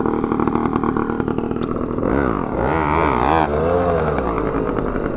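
Small motorized-bicycle engines running at idle with a fast steady putter, then revved up and down in quick throttle blips from about two seconds in.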